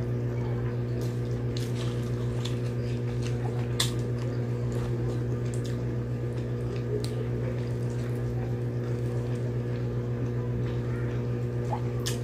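Scattered soft clicks and wet smacks of bare fingers picking flesh off a banana-leaf-wrapped grilled tilapia, and of closed-mouth chewing. A steady low hum runs under them and is louder than they are; the sharpest click comes about four seconds in.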